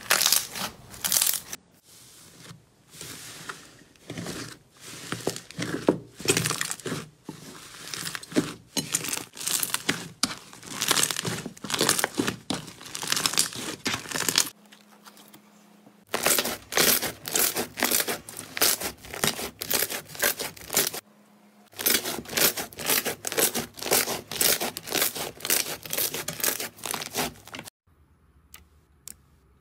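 Slime being squeezed and kneaded by hand: a dense run of wet crackling and popping clicks. The run stops briefly twice, and only a few faint clicks are left near the end.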